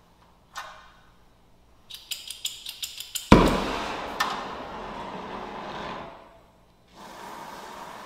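A brazing torch being lit: a quick run of about eight igniter clicks, then the gas catches with a sudden pop and the flame burns with a steady hiss for about three seconds before shutting off. A quieter steady hiss starts again about seven seconds in.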